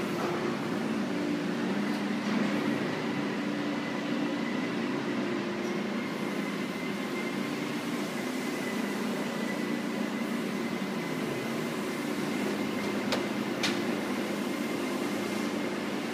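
PP/PS plastic sheet extrusion line running: a steady machine hum made of several low tones with a faint high whine over it. Two short sharp clicks come late on.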